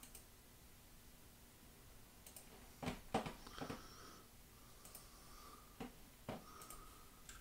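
About half a dozen faint, scattered clicks at a computer, starting about two seconds in, over quiet room tone.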